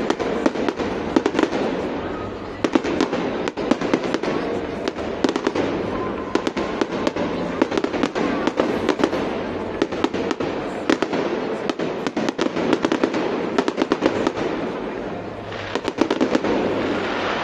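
Fireworks display: a rapid, continuous run of aerial shell bangs and crackle, several reports a second. Near the end the crackling swells into a denser fizzing rush as glittering white shells break.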